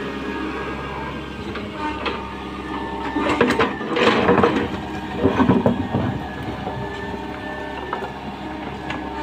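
Tata Hitachi 120H excavator's diesel engine running with steady whining tones over it, and a stretch of clattering and scraping from about three to six seconds in.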